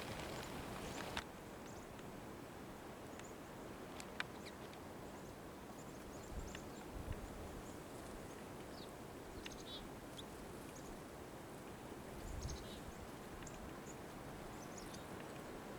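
Faint outdoor background noise with scattered short bird chirps, a sharp click about four seconds in and a few soft low thumps.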